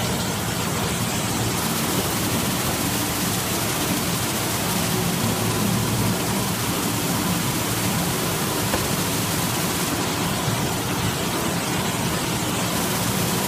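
Semi-automatic two-roll kitchen towel wrapping machine running: a steady, even mechanical din with a hiss to it, with no pauses or distinct strokes.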